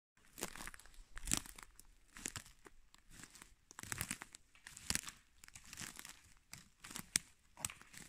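Footsteps crunching and snapping over a dry pine-forest floor of twigs, needles and moss, about one step a second.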